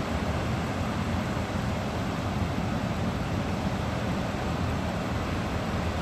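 Steady rumbling background noise, strongest in the low end, with no distinct events.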